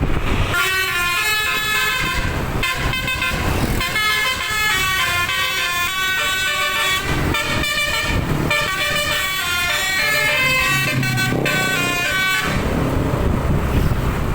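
A bus's telolet musical air horn plays a quick tune of changing notes. It starts about half a second in, pauses briefly between phrases, and stops about two seconds before the end, leaving a low rumble of vehicle and wind.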